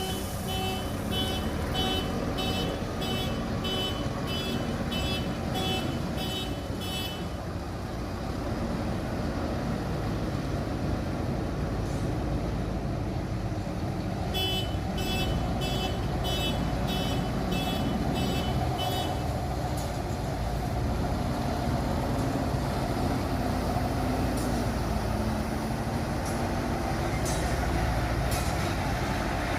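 JCB excavator's diesel engine running steadily while working, with a high-pitched warning beeper sounding about twice a second for the first seven seconds or so and again from about 14 to 19 seconds in, the kind of alarm that sounds while the machine moves.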